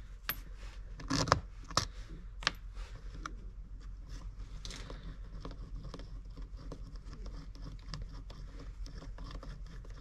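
Small clicks and scrapes of metal screws being taken out of a Tillotson HD carburetor's diaphragm cover and set down on a paper-covered bench. The sharpest clicks come in the first few seconds, then only faint ticks of handling.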